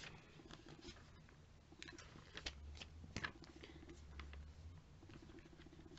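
Faint handling of paper catalogue pages being leafed through and touched: a few scattered soft ticks and rustles.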